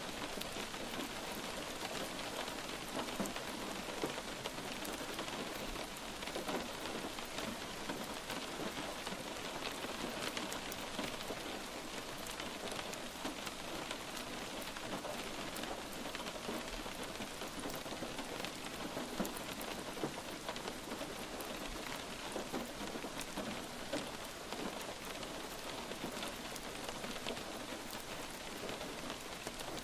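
Light rain falling steadily, a constant hiss with many small drop ticks and no change in strength.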